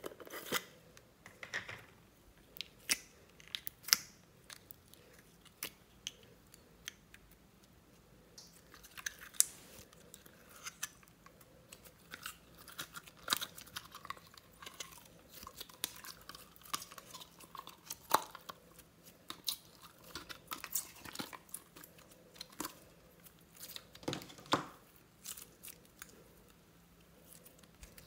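Purple slime being worked out of a plastic jar and stretched by hand, making faint, irregular sticky clicks and pops, with a denser run of crackling through the middle.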